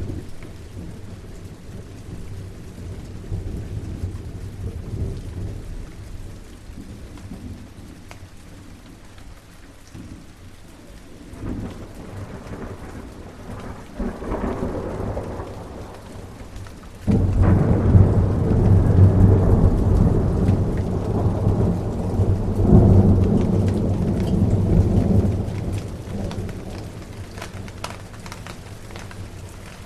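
Steady rain with thunder: a few low distant rumbles swell and fade, then a sudden loud thunderclap a little past the middle rumbles on for about eight seconds before dying away under the rain.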